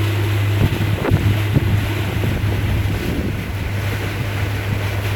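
Houseboat's motor running steadily underway as a low hum, with wind buffeting the microphone. A few short knocks about one to one and a half seconds in.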